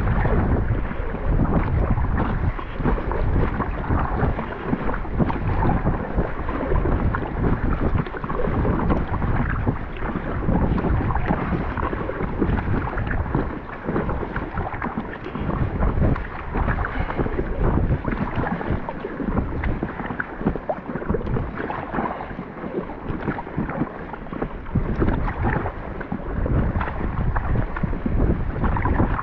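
Wind buffeting the microphone in gusts, with water splashing and lapping against an Intex Challenger K1 inflatable kayak paddled into a headwind.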